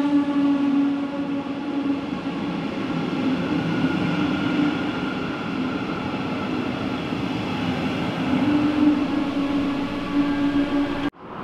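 Flughafen-Express train of double-deck coaches hauled by a class 147 electric locomotive moving along the platform, with a steady electric hum of several tones over the rumble of wheels on rail. The sound cuts off suddenly near the end.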